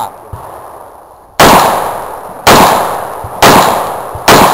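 Four gunshots from a firearm, fired about a second apart, each with a long decaying echo.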